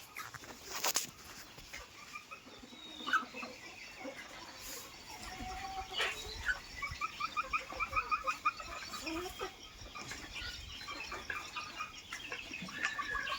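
Desi chickens clucking, with quick runs of short repeated calls through the middle, and a few sharp clicks.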